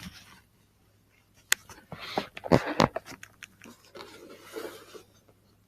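Unboxing noises: a sharp click about a second and a half in, then a cluster of knocks and crackling, and a softer rustle near the end, as packaging and the heater are handled.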